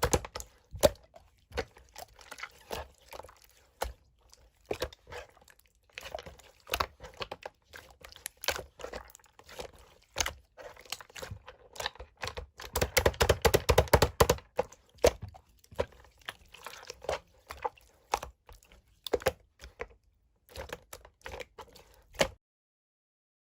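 Clear slime being squished and poked by hand: a run of small wet clicks and pops, with a denser, louder stretch a little past halfway.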